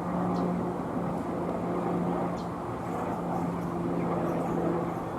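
A steady motor drone with a constant low hum, and a few faint, short high chirps of small birds over it.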